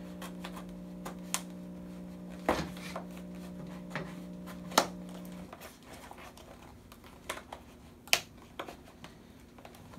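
A butter knife prying at a sealed plastic clamshell pack gives scattered sharp clicks and crackles of stiff plastic. A steady low hum in the room stops about halfway through.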